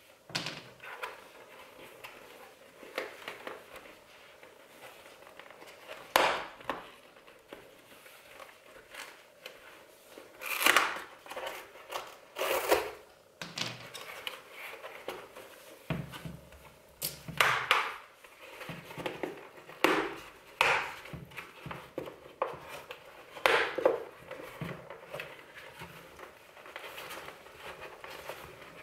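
A Bell Broozer motorcycle helmet's fabric liner and cheek pads being handled: continual fabric rustling, with several louder, short, sharp tugging sounds as pads are pulled from the shell and pressed back into place.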